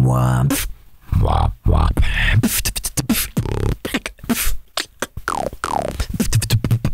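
Solo beatboxing demonstration: a deep buzzing throat bass note at the start, then a string of short bass and lip sounds including an inward lip roll.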